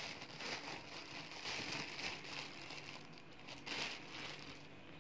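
Thin clear plastic bag crinkling and rustling faintly and irregularly as a hand digs into the dried beans inside it.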